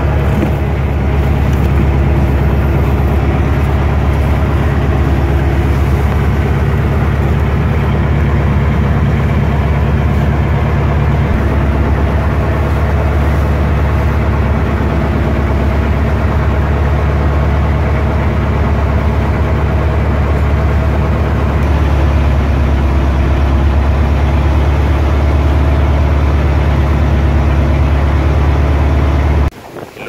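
Fishing boat's engine running steadily at constant speed, a loud low drone that cuts off suddenly near the end.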